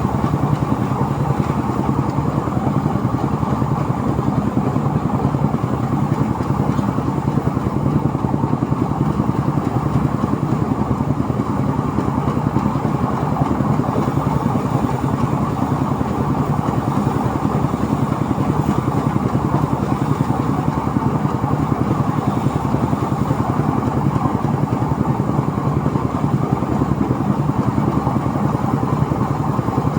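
Engine-driven rice threshing machine running steadily, with a fast, even engine pulse under the rush of the threshing drum.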